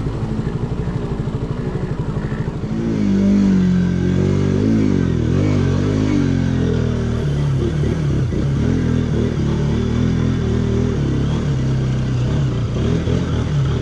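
Motorcycle engine running while riding, getting louder about three seconds in as the revs rise and fall several times, then holding fairly steady.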